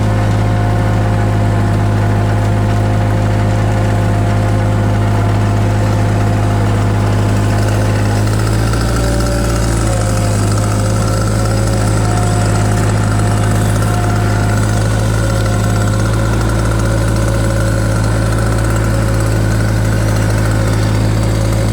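Takeuchi TB016 mini excavator's diesel engine running steadily, with a brief change in its note about nine seconds in.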